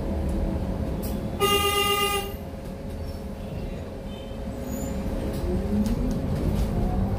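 Steady engine and road rumble of a moving city bus, with one horn blast of just under a second about a second and a half in.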